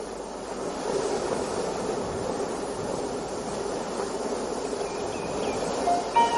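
Steady wash of sea surf. Faint short bird chirps come in about five seconds in, and music notes begin right at the end.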